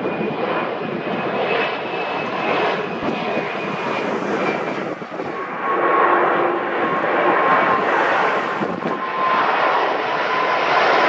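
Airbus A340-600's four Rolls-Royce Trent 500 turbofans on approach: a steady jet rumble with a thin high whine on top. About six seconds in it grows louder and the whine settles to a lower pitch.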